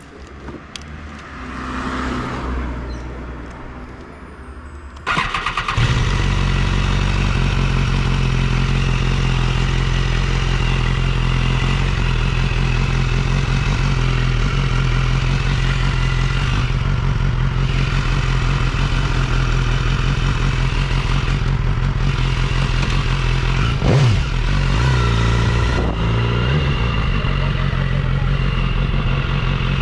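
BMW S1000RR's inline-four engine is started about five seconds in and then idles steadily, with one short rise in revs about three quarters of the way through.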